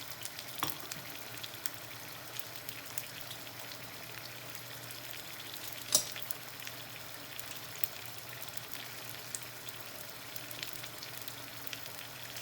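Paella base of seafood and vegetables sizzling steadily in the pan, with scattered small crackles. One sharp knock about six seconds in stands out as the loudest sound.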